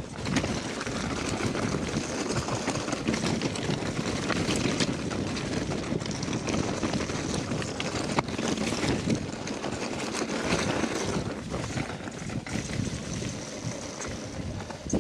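Mountain bike rolling downhill on a gravel track: tyres crunching over loose stones, with many short knocks and rattles from the bike over bumps and wind buffeting the microphone.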